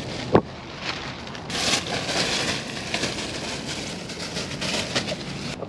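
A puppy scrambling about in a fabric play tunnel: the material rustles and scrapes, louder for about a second midway, with a short sharp sound just after the start.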